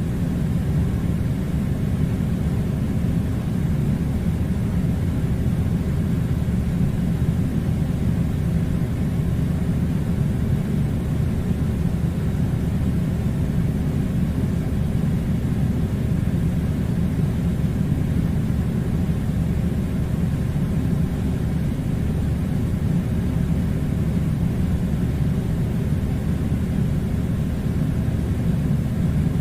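Air conditioner running: a steady, unbroken low rumble.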